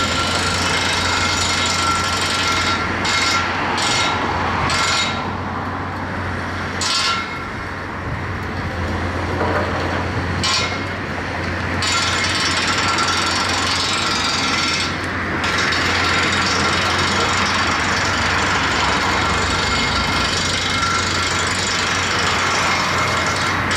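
Komatsu PC228US LC hydraulic excavator working: its diesel engine runs with a steady hum under a continuous clattering rattle, which dips briefly a few times in the middle.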